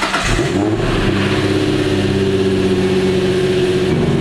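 A 2005 Infiniti G35's 3.5-litre V6 just after starting: it revs up briefly in the first half-second, then settles into a steady idle.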